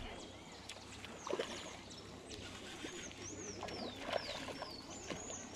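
Pondside ambience: a bird repeats a short falling whistle about once a second over a low steady hum, with a couple of faint knocks.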